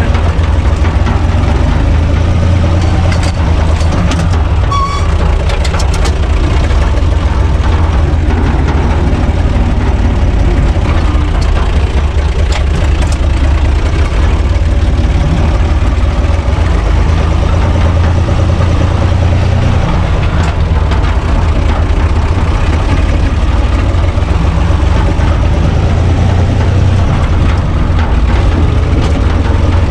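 UTB 445 tractor's diesel engine running steadily under way, heard from inside the cab. A few light clicks come about four to six seconds in.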